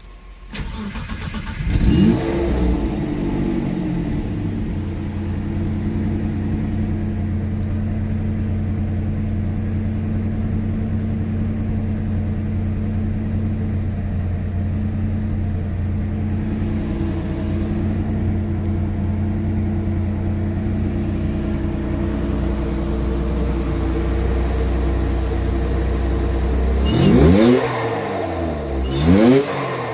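Car engine starting up about half a second in, catching with a short rev, then idling steadily; near the end it is blipped up and down a couple of times.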